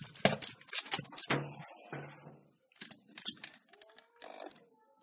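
Handling noise from a bent steel-wire pot stand being set onto a wooden log: a string of sharp clicks and knocks with scraping and rustling between them.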